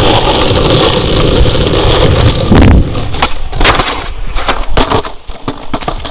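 Skateboard wheels rolling loudly over rough asphalt, then a string of sharp clacks and knocks as the board hits a homemade grind rail and the trick fails, the skater and board coming down on the pavement.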